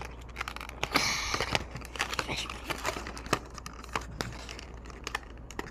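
Toy train packaging being opened and handled by hand: crinkling and rustling with many small clicks, and a louder rustle about a second in.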